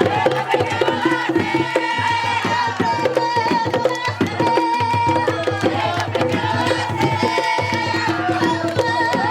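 Panamanian tamborito music: hand-beaten drums playing a fast, driving rhythm, with singing voices over them.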